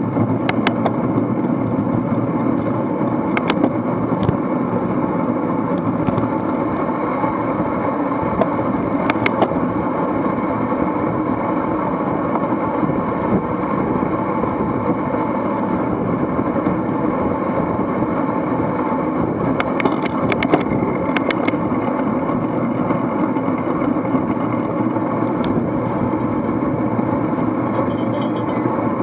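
Steady rush of wind and road noise on a bike-mounted action camera riding in a racing bunch at speed, with a few sharp clicks scattered through it, a cluster of them about twenty seconds in.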